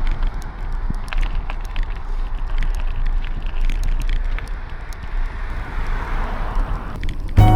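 Wind buffeting the microphone over the tyre and road noise of a bicycle being ridden, with scattered small clicks and rattles. Piano music starts suddenly near the end.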